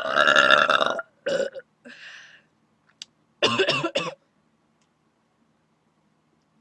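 Loud burping: one long burp lasting about a second, then a few shorter throaty sounds, the last and loudest of them about three and a half seconds in.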